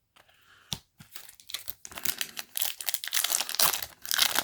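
Foil booster pack wrapper crinkling as it is handled and torn open. There is a single click under a second in, then a dense crackle from about a second and a half in.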